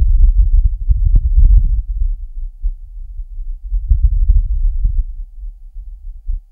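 Wind on Mars recorded by the Perseverance rover's microphone: a low rumble that swells and fades in gusts, with a few faint clicks about a second in and again past four seconds.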